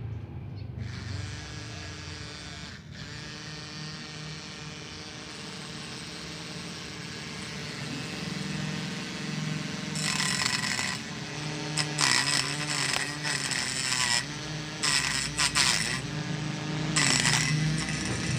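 Small Tamiya hobby motor whining as it spins a razor-blade cutter. From about ten seconds in its pitch dips and wobbles several times, with bursts of hiss coming and going.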